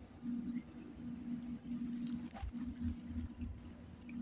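Insects droning steadily at a high pitch, with a low hum that comes and goes every half second or so underneath.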